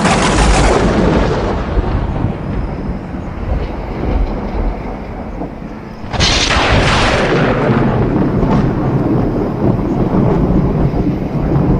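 Thunder from nearby lightning strikes: a sharp crack at the start and another about six seconds in, each rolling off into a long low rumble.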